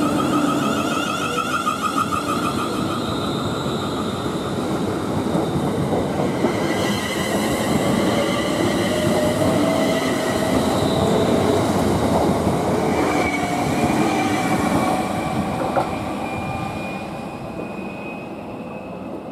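Class 360 Desiro electric multiple unit pulling away from the platform and accelerating. Its traction whine climbs slowly in pitch over the noise of the wheels on the rails, then fades over the last few seconds as the train leaves.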